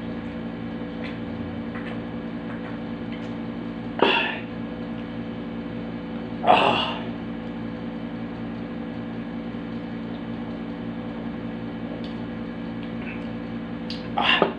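Short, loud, breathy throat sounds from a man drinking from a soda can: one about four seconds in, a louder one about six and a half seconds in, and another near the end. Under them runs a steady electrical hum.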